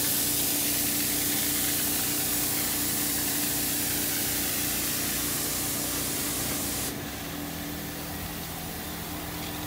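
Janilink carpet extractor working a carpet: a loud steady hiss of spray and suction from the wand over the constant hum of the machine's motor. The hiss drops away about seven seconds in, leaving the motor hum.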